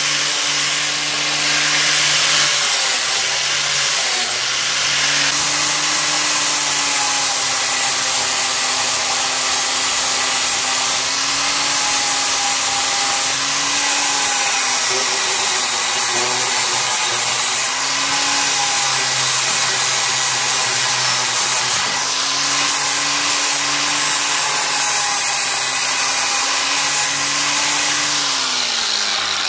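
Electric angle grinder with a sanding disc grinding rust off a steel machete blade. The motor hum dips and recovers in pitch as the disc bears on the metal, and winds down near the end.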